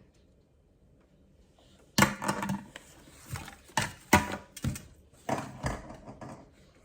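Handling of a plastic toy and its packaging: a run of short rustles and knocks, starting about two seconds in after near quiet.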